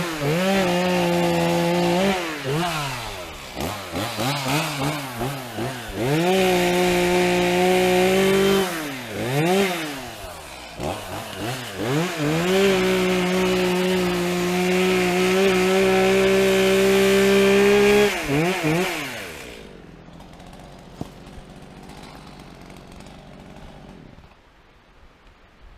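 Two-stroke chainsaw cutting through downed trees: it revs up and holds full throttle through three long cuts, blipping and dropping back between them. It winds down and stops about three-quarters of the way through.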